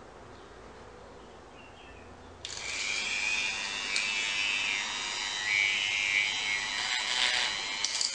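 A Dremel rotary tool starts about two and a half seconds in and runs at high speed, grinding a Hura crepitans seed carpel into shape. Its high whine wavers as the bit bites into the work.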